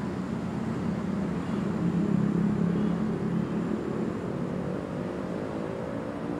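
An engine running, loudest about two seconds in, its pitch rising slowly through the second half.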